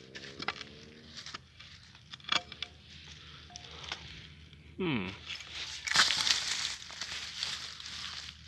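A few knocks of a small pick striking into soil, then hands scraping and rummaging through dry leaves and loose earth in a crackling rustle, loudest about six seconds in. Just before the rummaging, a brief sound slides down in pitch.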